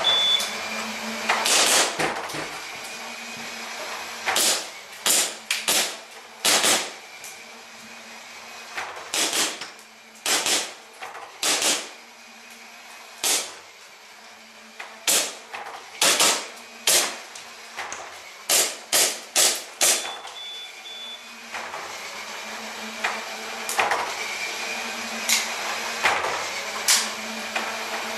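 Airsoft practical shooting: several dozen sharp cracks of an airsoft gun firing, with BBs striking metal plate targets, in irregular quick strings with short pauses. A short high beep sounds right at the start and again about two-thirds through, typical of a shot timer, over a steady low hum.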